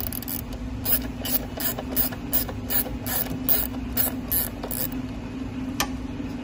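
Rapid run of about a dozen sharp mechanical clicks, two to three a second, from hands working at a car's under-hood fuse box, with one more click near the end. A steady low hum runs underneath.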